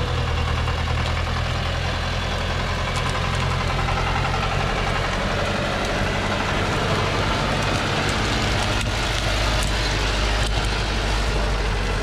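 Diesel engine of a Thaco truck loaded with acacia logs running steadily as the truck crawls over rough, cleared ground, with a few faint sharp clicks in the second half.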